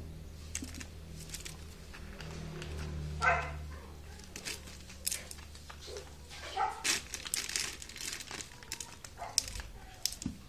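A kitten's claws and teeth scratching and tugging at sneaker laces and fabric: a run of irregular short scrapes and clicks, busiest in the second half. One short pitched cry comes about three seconds in, over a low steady hum.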